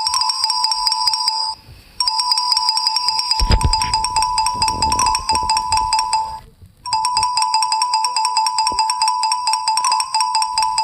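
Electronic ringtone: a fast trill of repeated high beeps that stops briefly twice, about one and a half and six and a half seconds in, then starts over. A low rumble sits underneath for a couple of seconds in the middle.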